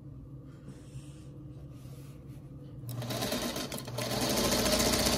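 Singer sewing machine starting to stitch about three seconds in, hesitating briefly, then running steadily at speed through the fabric.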